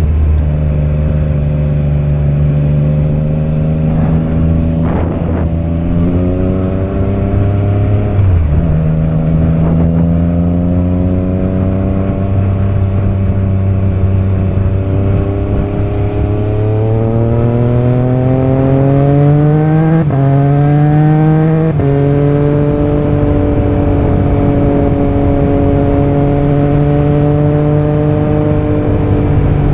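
Triumph Trident 660's inline three-cylinder engine pulling under way. Its pitch climbs and drops sharply at gear changes about 8, 20 and 22 seconds in, then holds steady at cruise.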